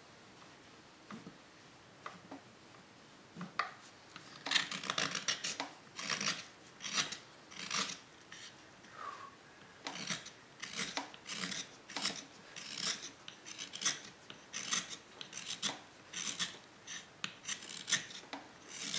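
Hand carving tool paring short scraping cuts from the inside of a green (fresh-cut) broadleaf maple bowl, one or two strokes a second, starting about four seconds in after a few faint taps.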